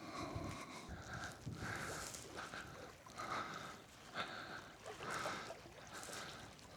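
Faint footsteps scuffing and rustling through sand and dune grass, a soft crunch every half second or so, as someone walks carefully down a dune.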